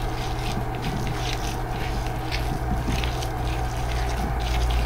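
Hands kneading and squishing ground pork mixed with dried daikon strips in a plastic bowl, giving irregular soft scraping, squelching sounds. A steady low hum runs underneath.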